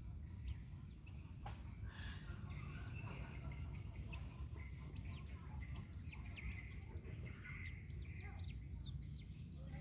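Chicks peeping: many short, high, falling chirps at an uneven pace, over a steady low rumble.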